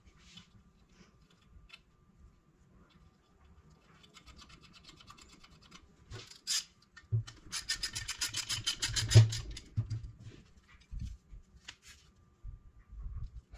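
Socket ratchet clicking rapidly for about two seconds near the middle, with fainter clicking just before it, among scattered knocks and scrapes of metal turbocharger parts handled on a plastic parts tray.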